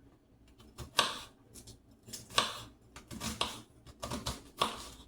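Knife chopping an onion on a cutting board: about ten sharp, uneven knocks of the blade striking the board.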